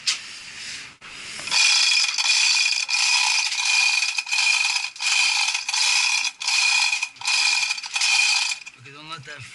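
A ratchet mechanism clicking in fast runs, with a brief break about every three-quarters of a second, as something is being loosened. It starts about a second and a half in and stops near the end.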